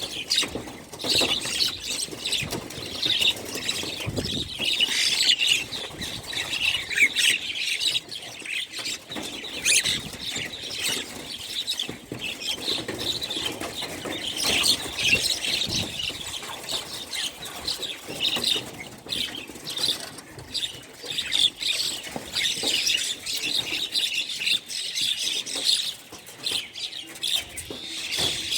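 Many small birds chirping and chattering at once in a dense, unbroken chorus, with frequent short rustles and clicks.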